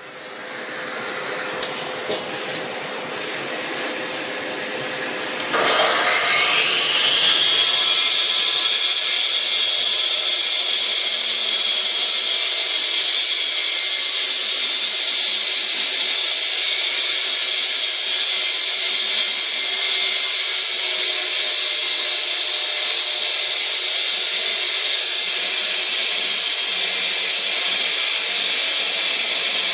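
A steady rushing noise, then about six seconds in the Husqvarna K3000 electric concrete cut-off saw starts. Its motor and blade wind up over about two seconds to a high, steady whine and keep running at full speed.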